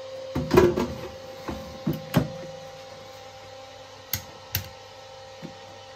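Air fryer basket pushed into its housing: a clatter of hard plastic knocks in the first second, two more knocks around two seconds in, then two sharp clicks about four seconds in. A faint steady hum runs underneath.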